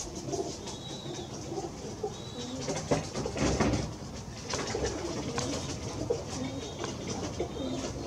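Pigeons cooing in low, wavering murmurs, with a louder rustling clatter about three to four seconds in and a few faint high whistles.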